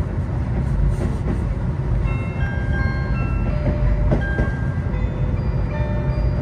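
Steady low rumble of a 35-series passenger coach running behind a steam locomotive. From about two and a half seconds in, an electronic chime plays a short melody of clear notes over the onboard public-address system, closing the announcement.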